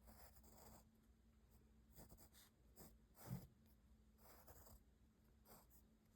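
Faint graphite pencil strokes scratching on paper in short separate bursts, about six of them, with a soft knock a little past the middle.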